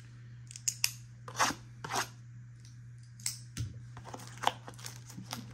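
A cardboard trading-card box being handled and its taped seal opened: a few sharp clicks and short scraping rasps, over a steady low hum.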